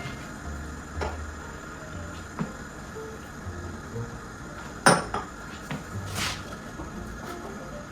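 Utensils clinking and knocking against a saucepan and dishes while a milk mixture is stirred and ingredients added: a few scattered knocks, the loudest a sharp clank about five seconds in.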